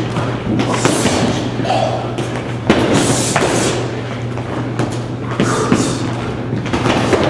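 Gloved punches thudding irregularly on hanging heavy bags, several people hitting at once, with music playing underneath.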